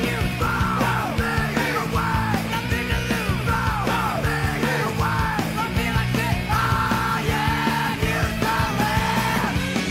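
Background rock music with a yelled vocal over a steady driving beat.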